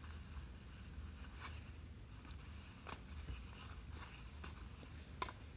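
Trading cards flipped one by one off a hand-held stack: faint, irregular clicks and slides of card stock, the sharpest just after five seconds in, over a steady low hum.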